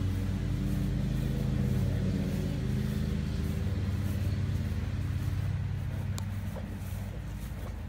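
A steady low engine-like hum, easing off slightly over the last couple of seconds, with one sharp click about six seconds in.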